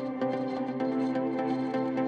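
Background music: calm ambient-style music with sustained tones and shifting notes.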